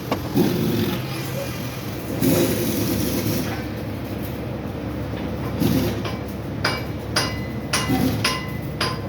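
A steady workshop rumble, then a quick series of hammer blows on steel starting about two-thirds of the way in, each strike ringing.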